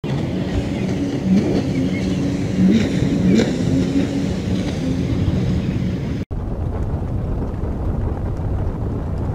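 A small motorboat's engine running on the water, its pitch rising briefly a few times. About six seconds in, the sound cuts to a steady low wind rumble on the microphone.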